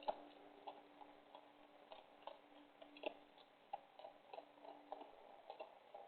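Faint, irregular clicks and crunches of animals chewing food, roughly one or two a second, over a faint steady hum.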